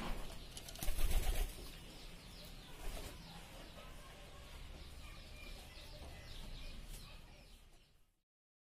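Pigeon wings flapping in loud bursts right at the start and again about a second in, over a bed of quick, high bird chirps. The sound fades out shortly before the end.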